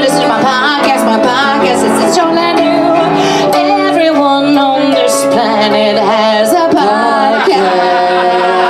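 A woman singing through a microphone over live instrumental accompaniment with held chords.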